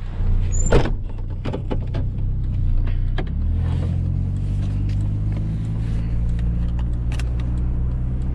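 A GMC Sonoma pickup's engine runs steadily, its note growing fuller about three seconds in. Scattered rattles and clicks sound over it.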